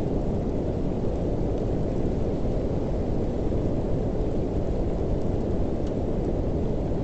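Steady, dull rushing noise, strongest in the low range and unchanging throughout. It is the masking sound of a subliminal track, laid over quiet affirmations.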